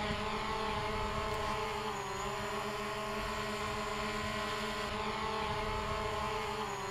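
DJI Mavic Pro quadcopter drone hovering just after takeoff: a steady, very noisy propeller whine made of several tones, dipping slightly in pitch about two seconds in and again near the end.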